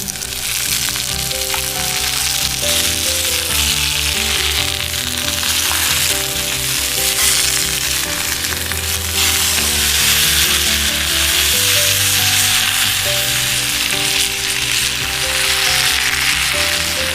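Ham steak sizzling steadily as it fries over a campfire, with background music playing under it.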